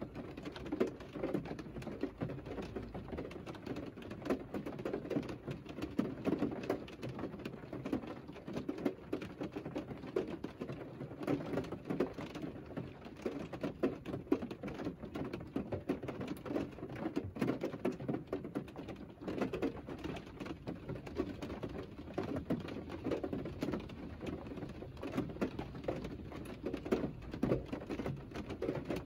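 Rain pattering on a parked Mercedes car's roof and body, heard from inside the cabin: a steady, dense run of small drop ticks.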